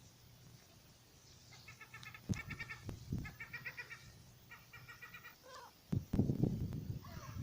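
Fast, pulsed chattering alarm calls in four short bursts, from a squirrel or the birds it is going after. Two sharp thumps come between the first bursts, and a louder rustling noise starts about six seconds in.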